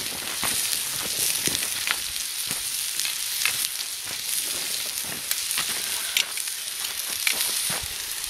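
Steak and asparagus frying: a steady sizzle with scattered pops and crackles.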